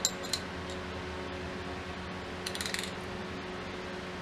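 Small metal clicks from a Williams hand ratchet being reassembled: two sharp clicks at the start, then a quick run of rapid clicks about two and a half seconds in.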